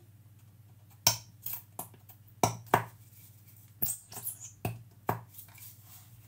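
Sharp knocks and clinks of containers being moved about on a kitchen shelf while she searches for golden syrup, about nine in four seconds, starting about a second in.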